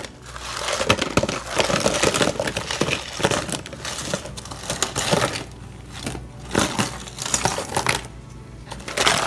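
Frozen lemon-juice ice cubes clattering and clinking into a plastic storage tub as they are pushed by hand out of a clear plastic ice tray, with the tray's plastic crackling. The clatter comes in clusters, with short pauses, and a last burst near the end.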